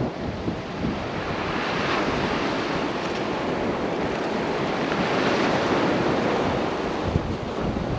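Wind buffeting the microphone over the wash of the sea on a rocky shore, a steady rushing noise that swells and eases.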